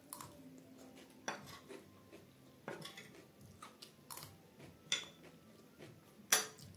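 Metal spoon clinking and scraping against a plate while scooping black chana chaat, about six sharp clicks roughly a second apart, the loudest near the end.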